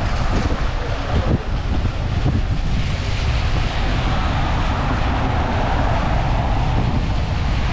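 Typhoon wind gusting across a camera microphone: an uneven low buffeting rumble over a steady rushing hiss.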